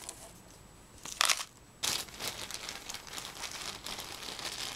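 Plastic snack wrappers and sachets crinkling and crunching as a pot of instant mash is handled over a pile of them: a brief rustle about a second in, then steady crinkling.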